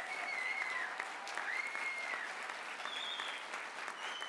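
A roomful of people applauding, steady clapping, with a few high held calls rising over it.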